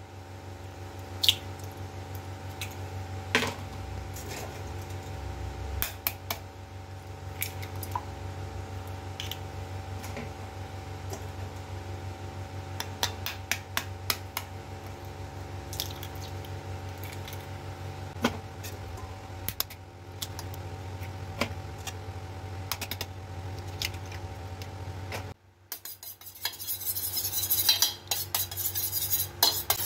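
Eggs cracked into a stainless-steel bowl, a sharp tap every few seconds over a steady low hum. The hum stops shortly before the end, and a spoon then beats the eggs fast, clinking and scraping against the steel bowl.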